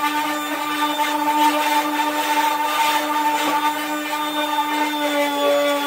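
Electric orbital sander running at a steady speed, its pad grinding the paint off a vintage VW Beetle's steel decklid: a constant motor hum at one pitch over a rough sanding hiss.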